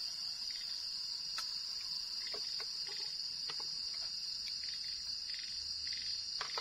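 Steady, high-pitched chirring of a night chorus of crickets, with scattered small clicks and taps close by.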